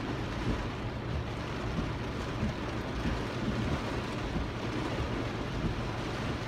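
Very heavy rain beating on the roof and windshield of a car, heard from inside the cabin as a steady, dense rush.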